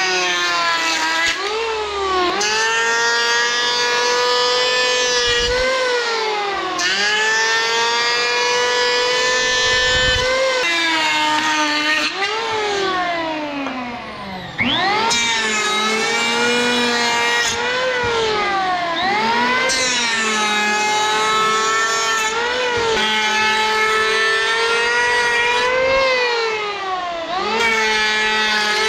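Powerhouse PHM-1900BX 700-watt electric hand planer cutting a palochina pine board, a high motor whine. The pitch sags each time the blades bite into the wood and climbs back as a pass ends, over and over. It briefly goes quieter about halfway through.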